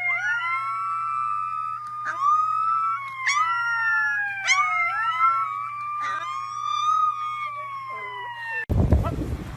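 A wailing siren, its pitch sliding slowly down and up, with a dog howling along to it in several long howls. It stops abruptly near the end.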